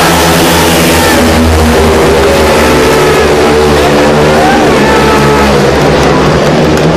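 A pack of 500 cc single-cylinder speedway motorcycle engines racing at full throttle, very loud and continuous, the pitch rising and falling as the riders accelerate and ease off.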